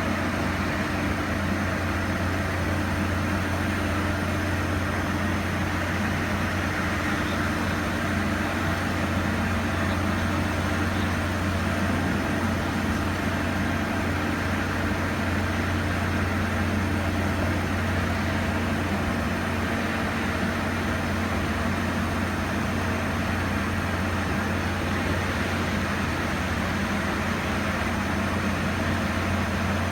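Steady, unchanging low drone of a running engine.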